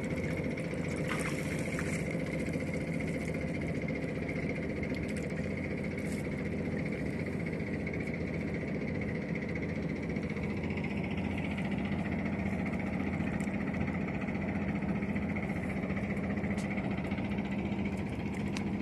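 A boat's engine running steadily on the river, a constant even hum, with a few faint clicks in the first few seconds.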